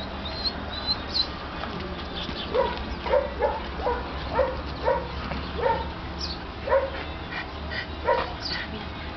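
Dog giving a string of about a dozen short, sharp yips and barks, starting a couple of seconds in, roughly one or two a second.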